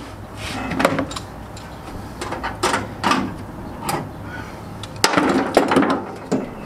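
Cleco sheet-metal fasteners being pulled out of a welded floor patch panel with cleco pliers: a series of short metal clicks and clinks, the loudest a little past five seconds in.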